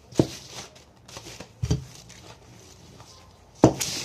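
Chapati dough being kneaded by gloved hands on a floured wooden board: three dull knocks, the last the loudest, with soft rustling between them.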